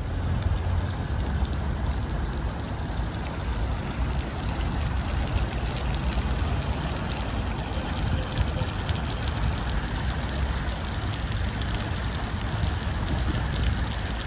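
Fountain water spraying and splashing steadily, with a low rumble underneath.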